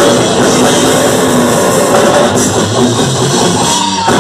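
Death metal band playing live: heavily distorted electric guitar, bass and drum kit at full volume, with a short break near the end.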